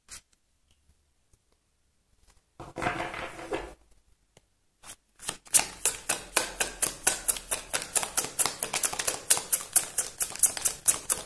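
A brief rustle of cards about three seconds in, then from about five seconds in, a tarot deck being shuffled in the hands: a quick, steady run of card clicks and slaps, several a second.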